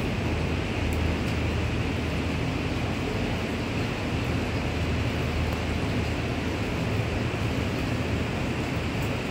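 Rain falling as a steady hiss over a low, even rumble.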